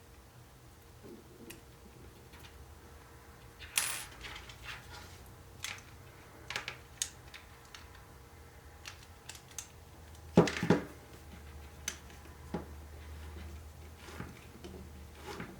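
Small RC car kit parts and tools being handled by hand, giving scattered clicks and clatters, with louder knocks about four seconds in and about ten seconds in.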